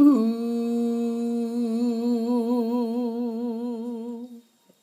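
A man's unaccompanied singing voice slides down a little at the start, then holds one long note with a vibrato that widens as it goes, fading out near the end.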